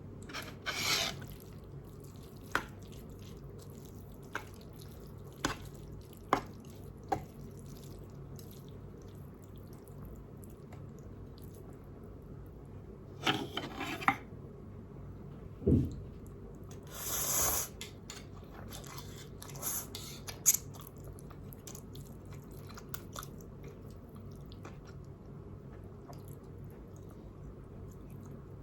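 Sparse, close-miked eating sounds from a noodle meal: scattered sharp clicks and taps, a few short noisy bursts, and one dull thump, over a low steady hum.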